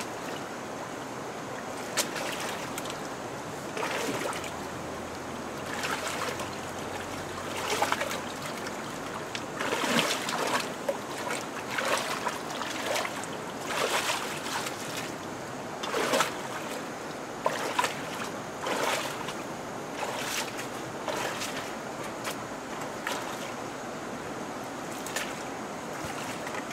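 Hands splashing and sloshing in shallow muddy water, with many short splashes over a steady background rush; the splashing dies away in the last few seconds.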